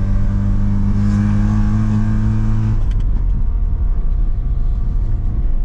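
Car engine running under throttle, its note rising slightly, then easing off about three seconds in to a lower steady running sound with road rumble.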